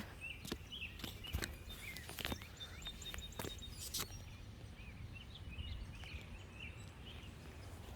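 Faint, scattered bird chirps, with a few sharp knocks in the first few seconds.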